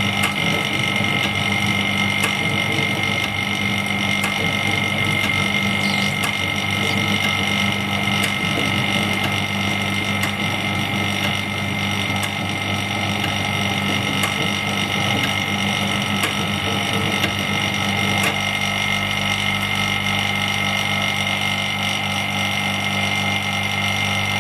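Steady hum of a heated LCD glass separator machine with its vacuum pump running, with a few faint clicks; the low hum changes pitch about eighteen seconds in.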